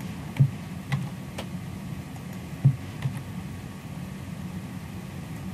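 About five scattered sharp clicks and taps of a computer keyboard and mouse while text is selected and typed, the loudest about half a second in and again near the three-second mark, over a steady low hum of room background.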